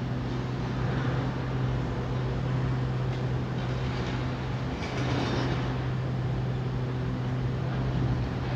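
Heavy demolition machinery's diesel engine running steadily, with a brief crunching rattle about five seconds in.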